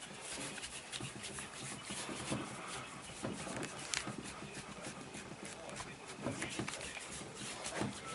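Hands rubbing and pressing on a person's body during a chiropractic massage, with clothing rustling. There are irregular short scrapes and soft taps, a few stronger ones about 4 seconds in and near the end.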